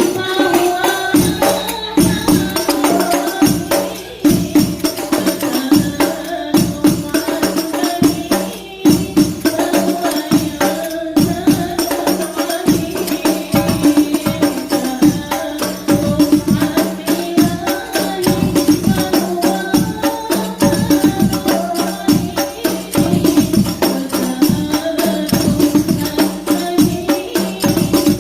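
Habsyi ensemble playing rebana frame drums in a fast, steady interlocking rhythm.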